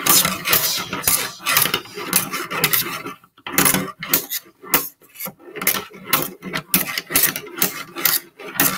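Two pairs of scissors clashing and scraping against each other and sliding over a tabletop, in a quick, irregular clatter of knocks and scrapes.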